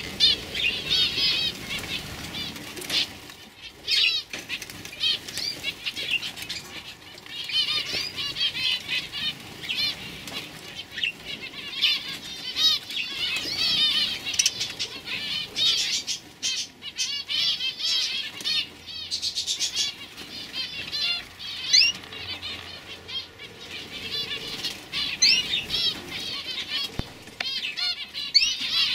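Young domestic canaries twittering and singing in fast, high trills of rapidly repeated chirps, almost without pause, with a few sharp clicks and flutters mixed in.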